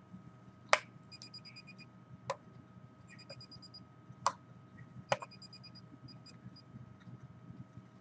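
Handheld EMF meter giving short bursts of rapid, evenly spaced high beeps, three or four times, over a faint steady electronic whine. Several sharp clicks stand out among them.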